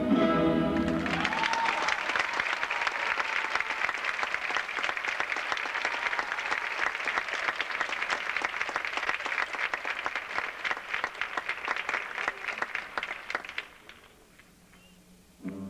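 Audience applauding, many hands clapping steadily before dying away near the end. Orchestral music breaks off just before the applause begins and starts again right at the close.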